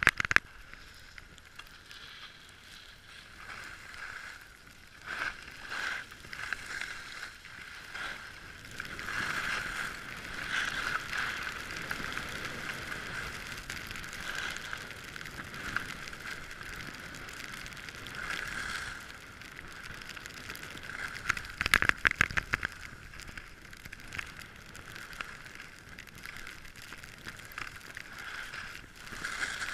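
Skis hissing and scraping over packed snow through a series of turns, the noise swelling and fading with each turn. A short burst of sharp clattering comes about two-thirds of the way through.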